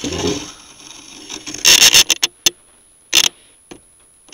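Short bursts of scraping noise, two of them loud, with a few sharp clicks between.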